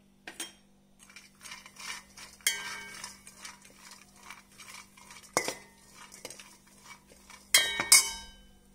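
Steel spatula stirring raisins and ghee in a stainless steel pan: metal scraping on metal, with sharp ringing clinks when the spatula strikes the pan, the loudest two close together near the end.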